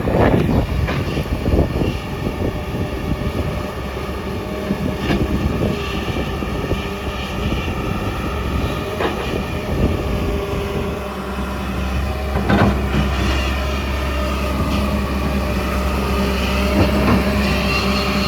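JCB 145 tracked excavator's diesel engine running under load, with repeated metallic clanks and knocks from the tracks and bucket. The steady low engine drone grows stronger about eleven seconds in.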